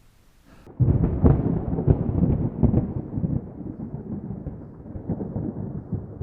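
Thunder: a sudden crack about a second in, followed by a crackling rumble that slowly dies away.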